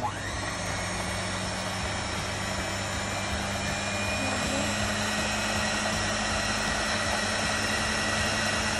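Electric stand mixer with twin spiral dough hooks running steadily at its lowest speed, turning flour and salt in the bowl.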